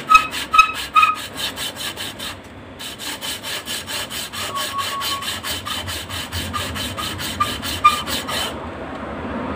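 Suzuki Satria FU camshaft holder rubbed back and forth by hand on fine sandpaper over a sheet of glass, about five quick scraping strokes a second, with a short pause about two and a half seconds in and a stop shortly before the end. The holder is being lapped flat because its camshaft clamp is worn and loose, which made the cylinder head sound rough.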